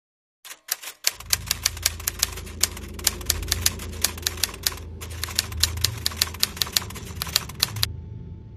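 Typewriter keys clacking in rapid, uneven strokes over a low hum, with a brief pause about five seconds in; the typing stops shortly before the end.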